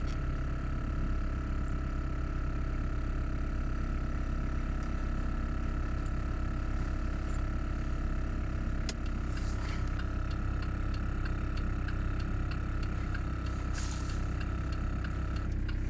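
Small air compressor running steadily while inflating a tyre, switching off shortly before the end, over a steady low engine-like hum that carries on.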